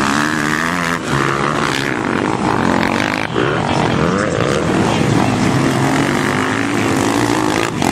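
Several motocross bikes racing, their engines revving up and down in overlapping pitches, with one rising and falling sharply about three seconds in.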